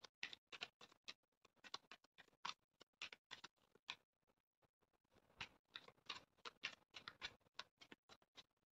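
Faint, irregular clicks and soft taps of a tarot deck being shuffled and handled, a few a second, with a short pause about four seconds in.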